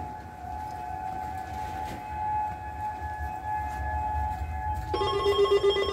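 Outdoor tornado warning siren holding a steady wail, heard from indoors. About five seconds in, a louder electronic Emergency Alert System tone starts suddenly over it, its pitches stepping back and forth.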